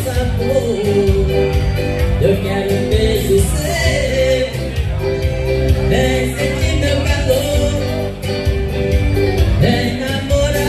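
Live forró dance music led by an accordion melody over bass and a steady percussion beat.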